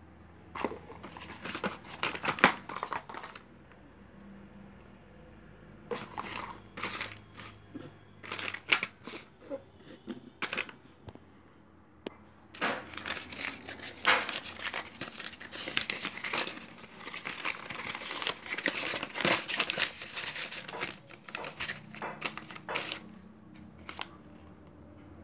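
Plastic and paper packaging rustling and crinkling as it is handled, in three spells of bursts with short pauses between them.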